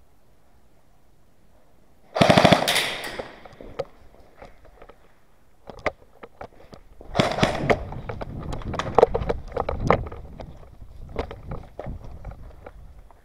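An airsoft gun fires a rapid full-auto burst about two seconds in. From about seven seconds in there are several seconds of irregular sharp clicks and knocks over a low rumble.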